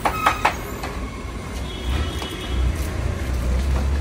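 Three quick, sharp knocks with a short ring in the first half second, then a steady low rumble of street traffic.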